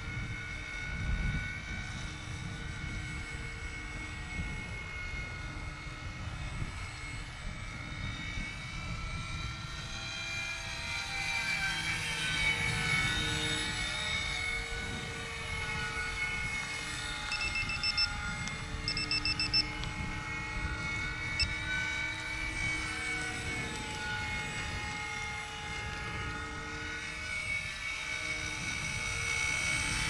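Electric-powered Ben Buckle vintage RC model plane flying overhead. Its motor and propeller make a steady whine that rises and falls in pitch as it passes, and the fuselage resonates with the motor, which makes it noisy. Wind rumbles on the microphone underneath.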